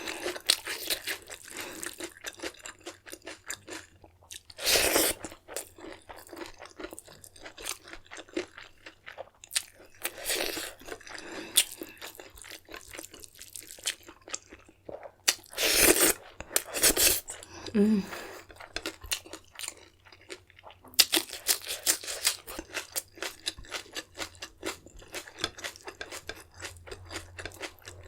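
Close-miked eating: a person chewing with many small crunches and mouth clicks, with a few louder, longer bite noises spread through.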